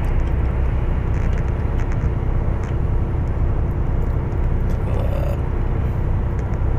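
Steady cab noise of a lorry cruising at motorway speed: a low engine drone with tyre and road rumble.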